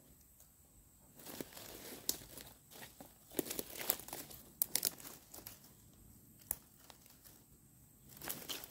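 Dry thorny brush and leaf litter rustling and crackling in irregular bursts as sticker-bush stems are pushed aside, with sharp twig snaps now and then.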